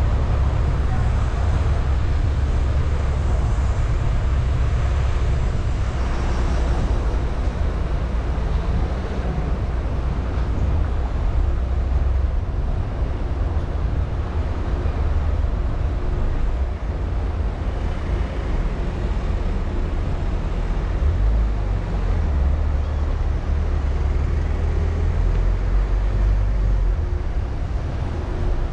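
A car driving: a steady low rumble of road and engine noise with no pauses.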